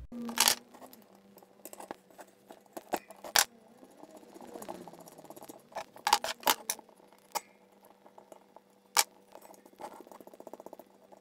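Sharp metallic clicks and knocks of spanners and parts being worked on a bicycle's coaster-brake rear hub, irregular and scattered, with a fast run of small ticks, about ten a second, near the end.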